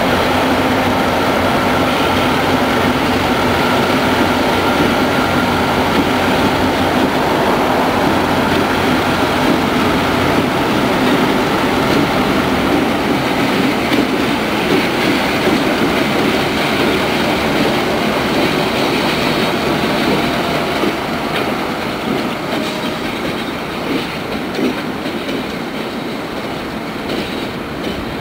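A consist of EMD GP16 diesel road-switcher locomotives rolling past, their engines running and wheels clattering over the track. The sound grows somewhat quieter over the last several seconds.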